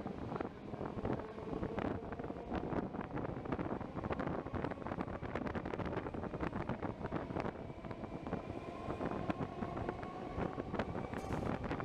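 Passenger train running out of a station, its wheels clicking and rattling over the rails, with a faint whine that rises slightly in pitch near the end as it gathers speed. Wind buffets the microphone at the open door.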